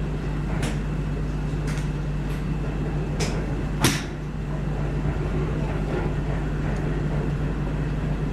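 A golf club striking a ball once, a sharp crack about four seconds in, with a few fainter clicks around it over a steady low hum.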